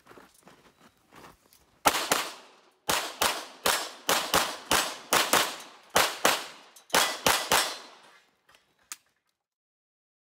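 A CZ Shadow 2 9mm pistol fired in a fast competition string: about sixteen sharp shots, many in quick pairs, starting about two seconds in and stopping about seven and a half seconds in. Light shuffling and handling noise come before the first shot.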